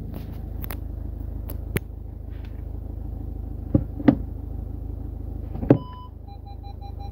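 Skoda Octavia cabin with a steady low running hum and a few sharp clicks as the gear lever goes into reverse, about four seconds in. Near the end the park-assist system gives a short tone, then starts rapid repeating beeps as reverse is engaged.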